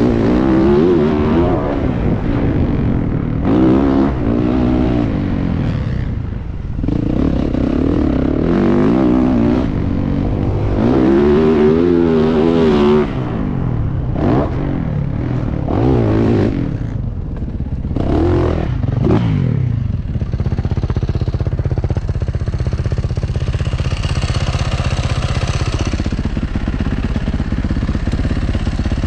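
Motocross bike engine heard from the rider's helmet camera, revving up and falling back again and again as it is ridden around the track, with shorter quick blips in the middle. In the last third it settles into a steadier, lower running note.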